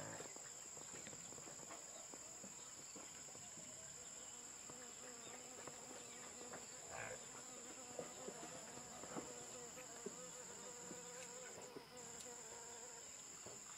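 Faint, steady high-pitched insect chorus droning in the background, breaking off briefly near the end.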